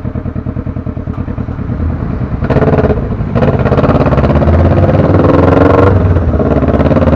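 Motorcycle engine running at low revs with a regular pulsing beat, then louder as it accelerates about two and a half seconds in, and it keeps pulling.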